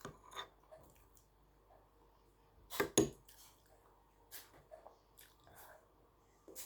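Someone eating a meal of rice and curry: soft mouth and chewing sounds with scattered short taps against dishes, the two loudest close together about three seconds in.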